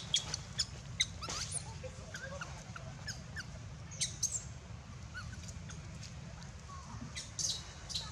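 Baby macaque giving short, high-pitched squeaks and chirps at irregular intervals, over a steady low hum.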